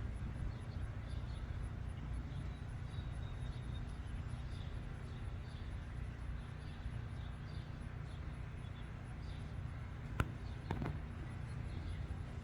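Outdoor background: a steady low rumble with faint, repeated high chirps. A sharp click about ten seconds in, followed by a smaller one just after.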